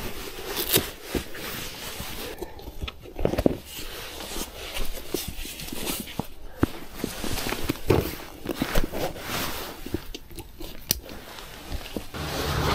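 Crinkly rustling of a nylon dry bag and waterproof clothing being handled, with scattered sharp clicks and light knocks as the bag is loaded into a folding canoe. A low rumble begins near the end.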